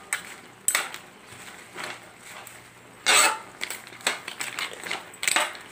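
A cooking utensil scraping and clanking against a metal wok as it stirs a wet mix of seafood and leafy greens. It comes in a handful of separate strokes, the loudest about three seconds in.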